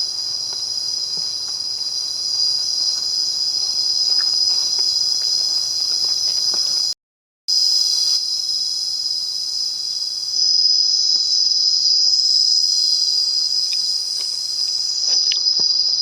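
A loud, steady chorus of insects shrilling on several high pitches at once, unbroken except for a half-second gap about seven seconds in.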